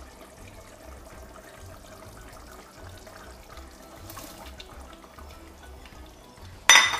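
Okra pods tipped from a plate into a stainless steel pot of simmering stew: a quiet steady liquid sound with a soft splash about four seconds in, then a loud metallic clatter of utensil against pot near the end.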